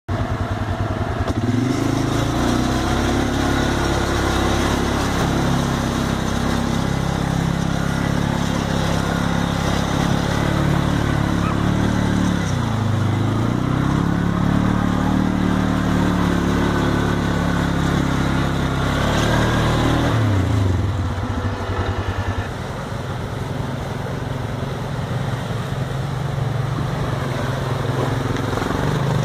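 ATV engine running under load through a creek crossing, its pitch rising and falling with the throttle; about twenty seconds in it settles to a lower, steadier note.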